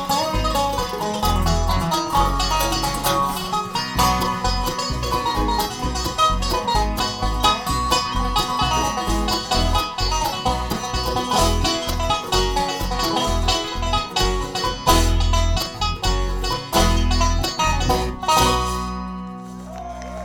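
Live bluegrass band playing an instrumental passage, ending on a final chord that rings out and fades about eighteen seconds in.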